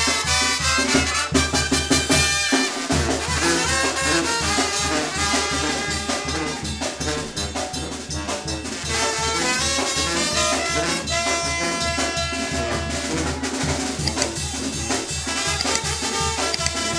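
Live Mexican brass band, with sousaphone, trumpets and other horns over a drum kit and snare, playing a lively dance tune with a steady beat. The bass drops out for a moment about three seconds in.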